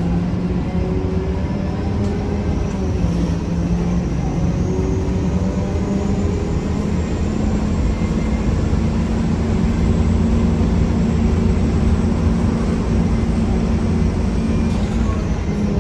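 1993 Gillig Phantom transit bus under way, its Cummins ISM diesel and drivetrain running with a loud grinding noise that the uploader suspects comes from the Allison B400R transmission. The low drone steps up in pitch about halfway through, with a faint high whine slowly rising above it.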